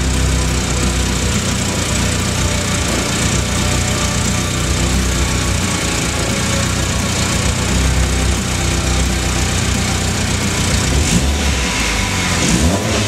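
Freshly rebuilt Opel C16SE 1.6-litre eight-valve four-cylinder engine idling steadily just after its first start, with a short rise in pitch near the end.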